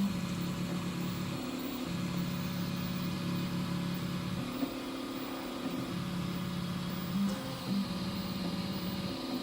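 3D printer running while printing flexible filament: its stepper motors hum in steady tones that change pitch and pause every few seconds as the print head moves, over a steady fan hiss.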